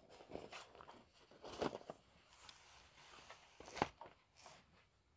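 Faint handling noises from a cardboard box being opened: a few short scrapes and taps, the loudest about four seconds in.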